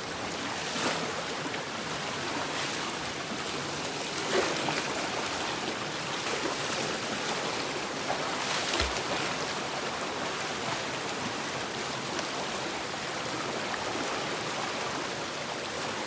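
Fast stream water rushing steadily over rocks, with a few short knocks, the clearest about nine seconds in.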